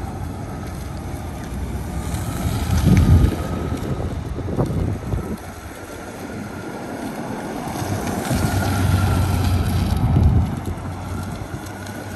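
Honda Gold Wing's flat-six engine running at low speed as the motorcycle circles in slow, tight turns, rising and falling in loudness twice. Wind rumbles on the microphone.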